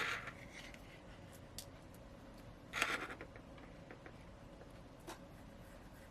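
Small handling noises of a disassembled smartphone being worked on: a click at the start, a short scraping rub about three seconds in, and a few faint ticks.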